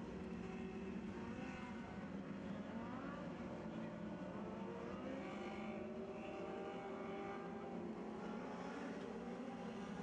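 Lightning Sprint race cars' engines running at low, steady throttle as the pack circles the dirt oval at caution pace, with a brief rise in pitch about three seconds in.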